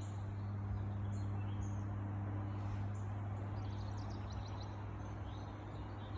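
Garden birds chirping, with a quick run of notes about four seconds in, over a steady low hum.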